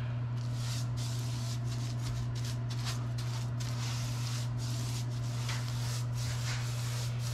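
Paintbrush bristles swishing wet paint onto a painted wall in quick back-and-forth strokes, about four a second, starting a moment in. A steady low hum runs underneath.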